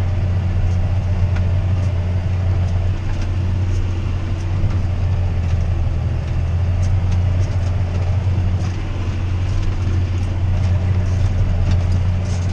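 John Deere 6R tractor's diesel engine running steadily with an even low drone.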